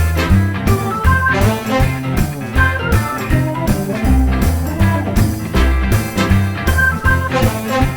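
Background music: a guitar-led blues-rock track with a steady beat and bass.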